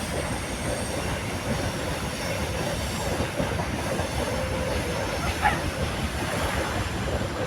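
A train passing along the shore, its wheels running on the rails in a steady, continuous rumble.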